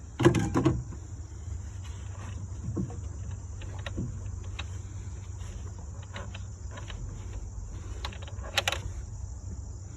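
Rag wiping and scrubbing inside a throttle body, with scattered light rustles and clicks, a brief louder handling noise right at the start and another near the end. Crickets chirp steadily in the background.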